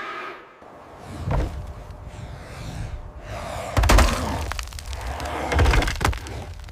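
Heavy impact sound effects: a short knock about a second in, then two loud crashes with deep booms and crackling, the first the loudest, about four and six seconds in.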